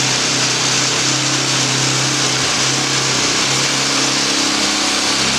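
Suzuki DR-Z400 single-cylinder four-stroke engine running steadily on its first start after new valves and a refitted cylinder head.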